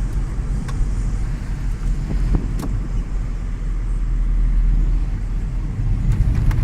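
A car driving along a road: a steady low rumble of engine and tyres, with a few light knocks.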